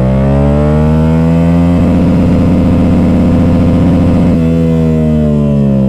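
Yamaha MT-07's parallel-twin engine revving hard in first gear through a loud exhaust: the pitch climbs, and about two seconds in it stutters against the rev limiter for a couple of seconds before the revs fall away.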